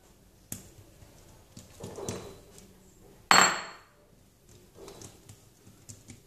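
Oiled hands pressing and spreading a ball of msemen dough flat on a granite countertop, with soft wet pats and smears. About three seconds in comes one sharp knock with a brief ring, the loudest sound.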